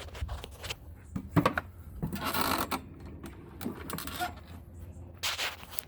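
Hands working on a mower's cable and kill-switch bracket: scattered clicks and light metallic rattles, with a short scraping rush about two seconds in and another near the end.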